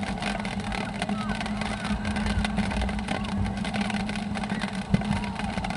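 Open-air ambience at a rainy soccer field: wind rumble on the microphone and a steady low hum, with faint distant shouts from players. A single sharp thump comes about five seconds in.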